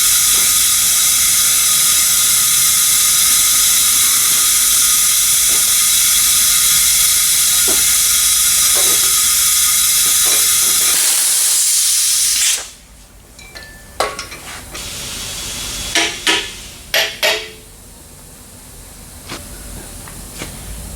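Compressed air hissing steadily, then shut off suddenly about two-thirds of the way through, followed by a few light metallic clicks and taps. The hiss fits shop air fed into a cylinder through the spark plug hole to hold the valves shut while the inner valve springs are changed.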